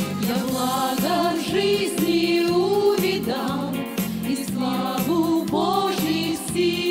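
A women's vocal ensemble singing a Russian-language Christian song together, over an instrumental accompaniment with a steady low beat.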